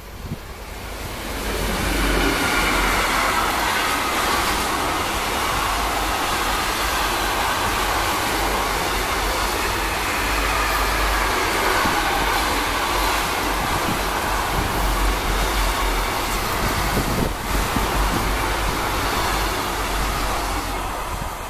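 Electric-hauled intermodal container freight train passing close at speed: a steady loud rush of wheels on rails. It builds over the first two seconds as the locomotive arrives and fades near the end as the last wagon goes by.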